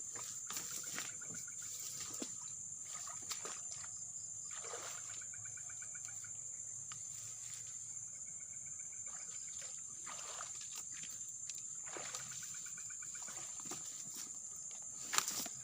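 Steady high-pitched insect drone with several stretches of rapid pulsed chirping over it, and scattered rustles and clicks, the sharpest one near the end.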